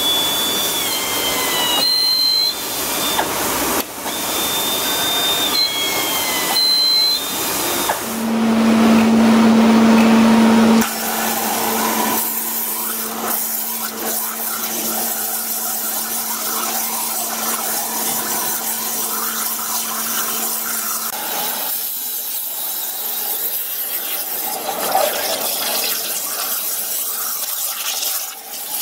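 Flow Mach500 waterjet cutting machine with its drill accessory at work: whines that glide up and down in the first several seconds, then a steady hum from about eight seconds in, loudest for a few seconds and stopping a little past twenty seconds in, over a continuous hiss of machine and spray noise.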